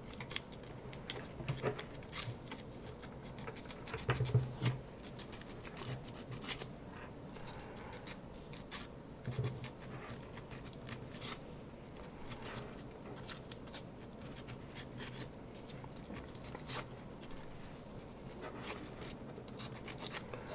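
Sandpaper being rubbed by hand over a plastic keycap to grind away its coating: quiet, irregular scratchy strokes, with a few louder handling bumps about four and nine seconds in.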